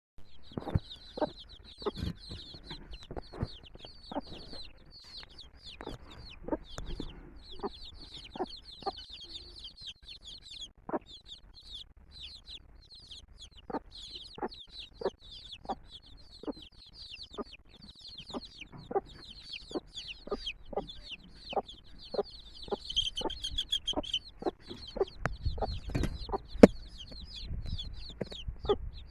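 A brood of chicks peeping non-stop, many short high falling chirps overlapping, with frequent short sharp knocks or clucks beneath them from the mother hen's side of the coop.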